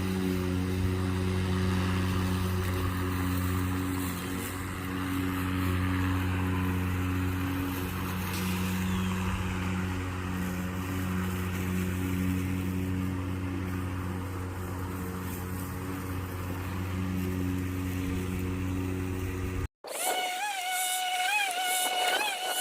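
Ryobi 20-inch battery-powered lawn mower running steadily while cutting grass, an even electric hum from its motor and blade. Near the end it cuts off abruptly and a wavering high tone takes over.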